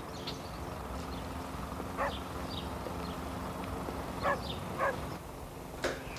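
A dog giving four short yips a few seconds apart, over steady background noise.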